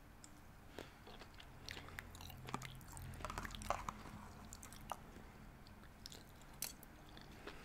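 Faint chewing of seaweed salad, with scattered small clicks of a metal fork against the bowl.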